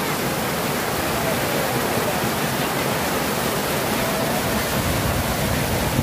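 Floodwater pouring over the weir of a full lake: a steady, unbroken rush of water spilling across the crest and down the face.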